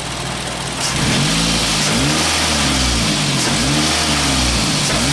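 Car engine idling, then revved in several quick throttle blips starting about a second in, the pitch rising and falling with each one.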